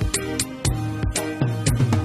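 Instrumental music with a steady drum beat, about three beats a second, over a bass line.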